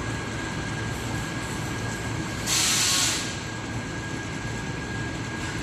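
Workshop machinery noise: a steady hum with a thin high whine running through it. About two and a half seconds in comes a loud burst of hiss lasting under a second.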